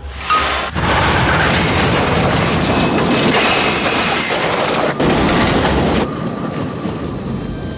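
A train rushing past: a loud, steady roar that drops to a quieter hiss about six seconds in.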